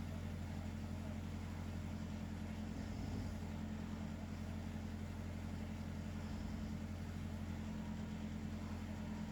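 Snoring: a low, rough rumble that swells with each breath, about every three seconds.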